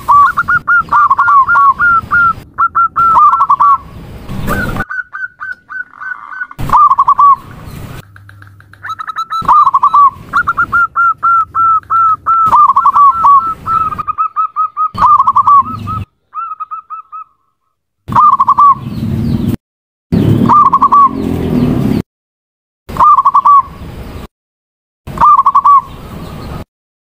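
Female zebra dove cooing: runs of short, rapidly repeated coo notes. In the second half the calling comes in short bursts broken by abrupt silences, as a spliced, looped call recording.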